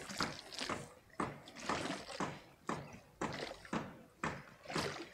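Small harbor waves lapping and slapping against the pier, with irregular splashes and knocks about twice a second.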